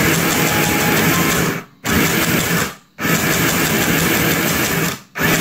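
Mini portable electric sewing machine running and stitching a seam through cotton fabric, in spurts with three short stops. It is sewing a test seam after its upper thread tension dial was loosened.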